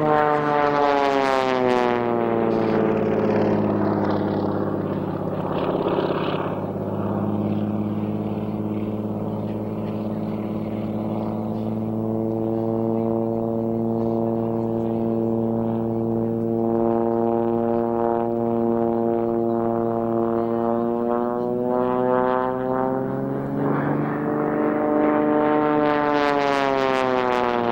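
Propeller aircraft engine droning as the plane flies past. Its pitch falls during the first couple of seconds and again near the end as it goes by, and holds fairly steady in between.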